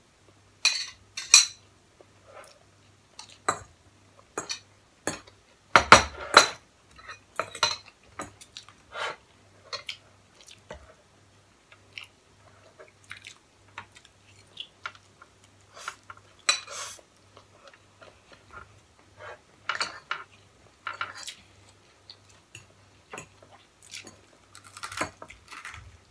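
Forks and spoons clinking and scraping on plates at irregular intervals as food is scooped up, with a louder cluster of clinks about six seconds in.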